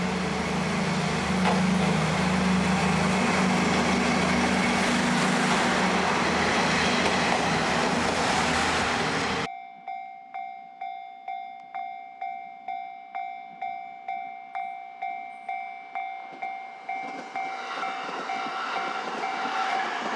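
KiHa 30 diesel railcar's DMH17 diesel engine idling at the platform with a steady low rumble. About nine and a half seconds in it gives way abruptly to a level-crossing bell ringing in even strokes, close to two a second, as an E217-series electric train approaches, its rail noise growing near the end.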